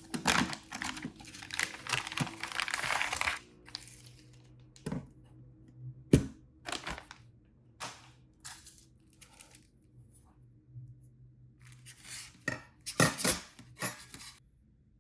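Plastic packaging crinkling and tearing for about three and a half seconds, then a string of sharp clicks and knocks as split-keyboard kit parts are handled and set down, the loudest about six seconds in, with another cluster of clicks near the end.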